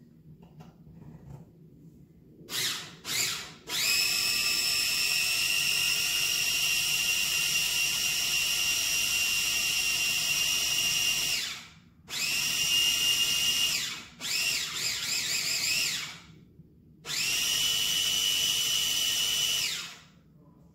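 Electric mini food chopper whining as it chops dried herbs, seasonings and grated Parmesan, run in pulses: two quick blips, then one run of about eight seconds and three shorter runs of two to three seconds, the pitch wavering in one as the load shifts.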